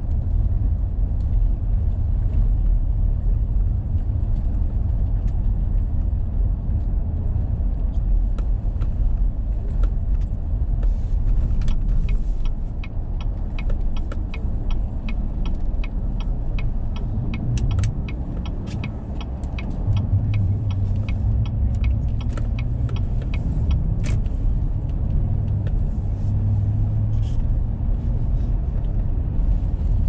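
Car cabin noise while driving on snowy roads: a steady low rumble of engine and tyres, easing off a little in the middle. A run of evenly spaced light ticks, about three a second, goes on for roughly a dozen seconds in the middle.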